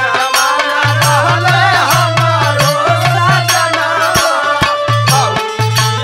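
Instrumental interlude of a Bhojpuri jogi folk song: a wavering melody over a steady low bass line and regular percussion strokes.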